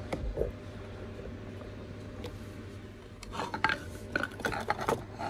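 Small clicks, taps and rubbing from a picture being fiddled with and set on a desk stand, which will not stay upright. There is a short cluster right at the start and a busier run of taps from about three seconds in.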